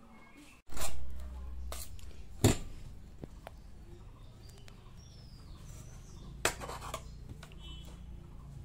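Metal palette knife clicking and scraping as it spreads whipped cream over a sponge cake layer: a few sharp clicks, the loudest about two and a half seconds in, over a low hum that starts just under a second in.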